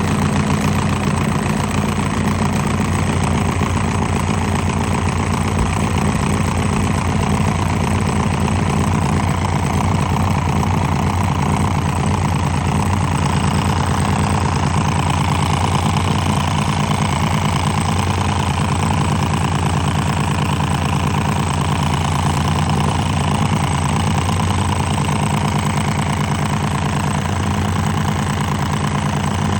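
Small induction motor powered up but failing to start, giving a steady loud electrical hum with a buzzing, rattling vibration. The motor is stalled instead of turning.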